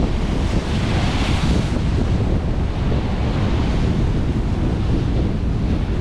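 Sea waves breaking and washing among concrete breakwater blocks, with a hissing splash surging about a second in and a smaller one midway. Underneath is a steady low rumble of wind buffeting the microphone.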